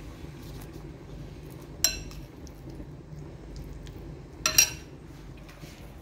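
A metal spoon clinking against a glass bowl while stirring a thick pecorino cheese paste: one sharp clink about two seconds in and a quick double clink about halfway through.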